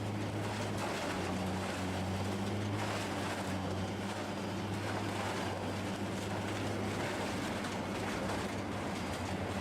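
A wood chipper's engine running at a steady speed, a constant low hum with a broad rushing noise over it and no change in pitch or level.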